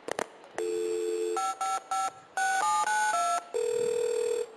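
Telephone sound effect played back: a couple of clicks, a steady dial tone, a quick run of about eight keypad beeps as a number is dialled, then the ringing tone as the call goes through.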